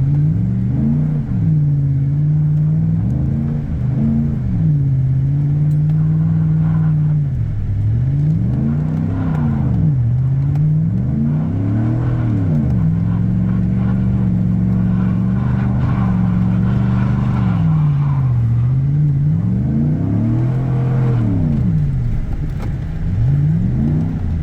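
Four-wheel-drive vehicle's engine revving up and back down again and again, about eight or nine times, with steadier running in between, as it is driven in donuts on snow.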